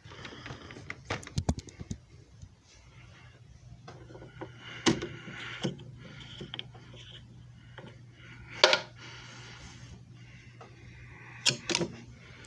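Scattered sharp clicks and knocks over a low steady hum: a quick run of clicks about a second in, a few single knocks after that, the loudest about two thirds of the way through, and two more near the end.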